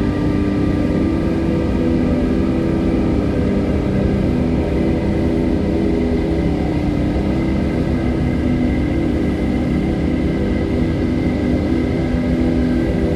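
Steady rush of river water over rocks, blended with a sustained ambient music drone of several held tones.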